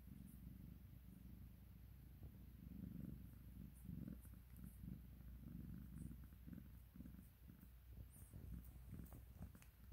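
Long-haired calico cat purring softly while being stroked under the chin: a low, faint rumble that swells and fades with each breath.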